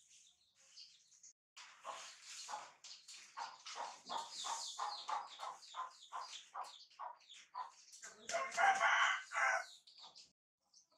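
Rooster clucking in a quick run of short calls, about three a second, then crowing once, the loudest sound, for about a second and a half near the end.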